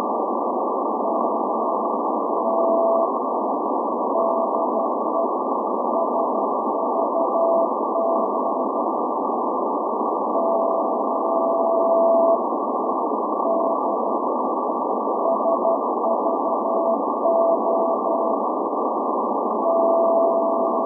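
Morse code from the SVO Athens maritime radio station's channel marker, received on 8424 kHz shortwave in CW mode: a tone of about 700 Hz keyed in dots and dashes over a steady hiss of filtered static. It includes a long held tone about ten seconds in and another near the end.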